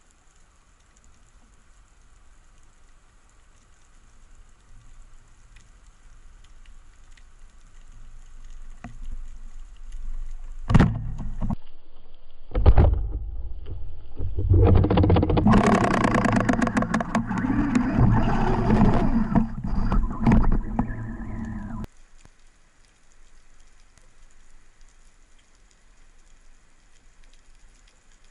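Underwater speargun shot: a sharp crack about eleven seconds in and another about two seconds later. Then a long loud stretch of rumbling and rapid clicking follows, which cuts off abruptly.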